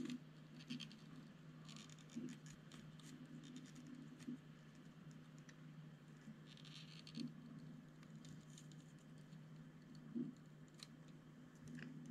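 Faint scratching and a few small clicks from a soldering iron pressing copper desoldering braid onto a battery tab's solder joint on a circuit board, wicking up the solder, over a steady low hum.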